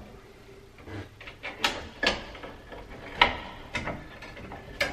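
Screwdriver and wire clicking and scraping against the metal neutral bar of a breaker panel as a neutral wire is set under its loosened terminal screw: about five sharp clicks, spread out a half second to a second apart.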